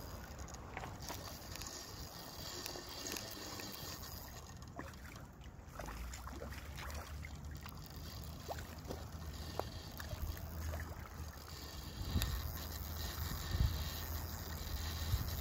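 Wind buffeting the microphone, with river water lapping against shoreline rocks and a few light knocks; the wind rumble grows stronger in the second half.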